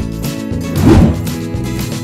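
Background music with a steady pattern. About a second in there is one brief, louder swell.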